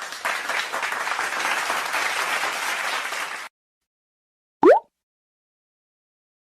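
Crowd applause for about three and a half seconds, then stops. After a short silence comes one brief, loud rising whistle-like blip.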